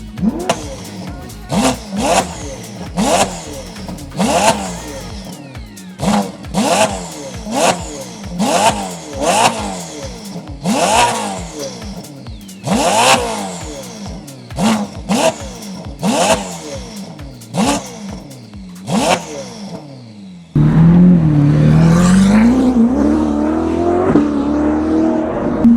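Ferrari SF90 XX twin-turbo V8 through a RYFT titanium straight-pipe exhaust, revved in quick throttle blips, each note rising sharply and falling back. About twenty seconds in it cuts abruptly to a louder continuous engine note that dips and then climbs in pitch.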